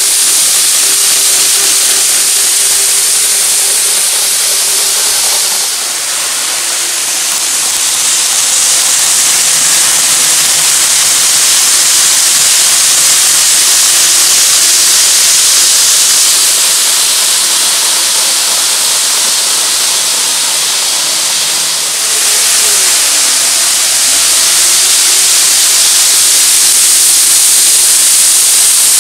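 N-gauge model trains, among them a 16-car KATO E4 Series Shinkansen 'Max Toki' set, running on a layout: a loud, steady rushing hiss of wheels on rail with a faint motor hum underneath. The sound dips briefly about 6 s and 22 s in, and a faint motor tone dips and rises in pitch shortly after the second dip.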